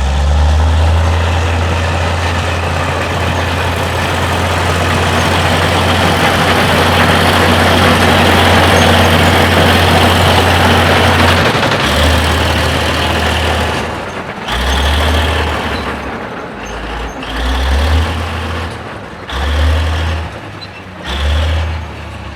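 Heavy engine of a large construction vehicle running with a loud low rumble, steady for about half the time, then in a series of short surges about a second long with drops between.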